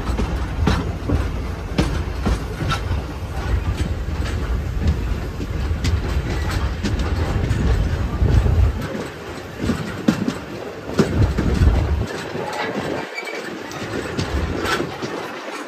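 Steam-hauled passenger train on the move, heard from an open coach verandah: the wheels click over the rail joints above a heavy low rumble, which drops away about nine seconds in.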